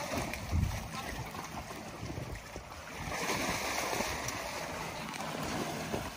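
Water sloshing and splashing around an African elephant as she wades through a river, with a heavier rush of water from about three seconds in.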